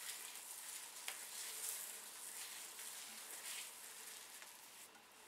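Hands working aloe vera gel through wet, curly hair: faint wet swishes and rustling as the fingers pull through the strands.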